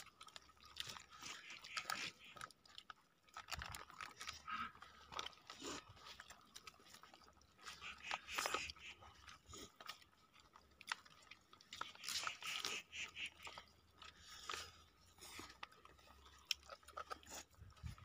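Children eating rice and vegetable curry with their hands: faint, irregular chewing and smacking mouth sounds with small clicks.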